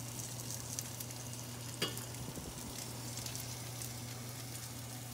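Butter-basted whole trout sizzling and crackling on foil under a gas oven broiler, over a steady low hum. A single sharp click comes a little under two seconds in.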